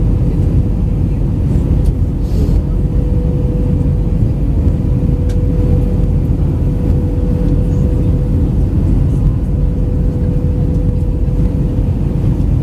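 Steady cabin noise inside an Airbus A319 airliner in descent: a loud, even rumble of engines and airflow, with a steady hum running through it.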